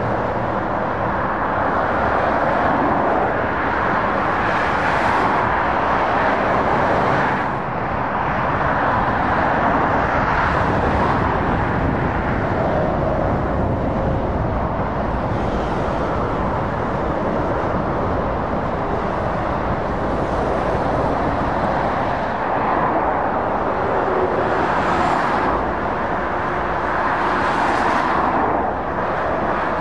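Dual-carriageway traffic with lorries and cars passing: a continuous rush of tyre and engine noise that swells several times as vehicles go by close.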